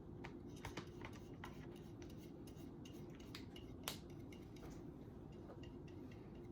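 Faint, scattered small clicks and taps of craft supplies being handled on a table, with the sharpest tap about four seconds in, over a steady low hum.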